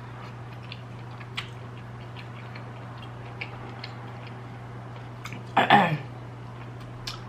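Soft, scattered mouth clicks from eating shrimp and rice. A short vocal sound falling in pitch breaks in about five and a half seconds in. A steady low hum lies under it all.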